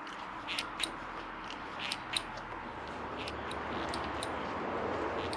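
The hydraulic clutch lever of a 2005 Suzuki SV1000 is pulled in and let out by hand, giving a string of light, irregular clicks over steady background noise. The lever is being checked for feel after the new clutch line has been bled.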